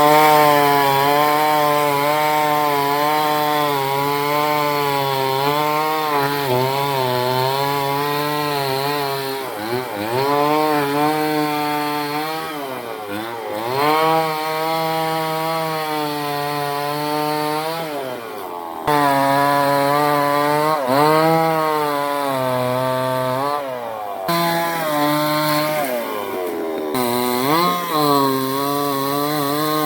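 Chainsaw cutting mango wood, its engine running hard under load. The pitch sags and recovers again and again as the chain bites into the wood and frees.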